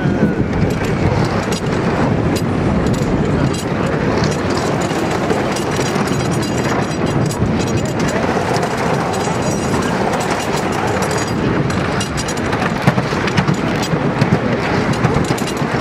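Wooden side-friction roller coaster train running along its track, heard from on board: a steady rumble of wheels with a dense clatter throughout.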